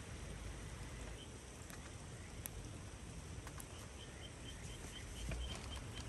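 Quiet night-time outdoor ambience: a few soft crackles from a wood campfire in a small folding fire grill, and from about midway on a faint high chirp repeating about three times a second.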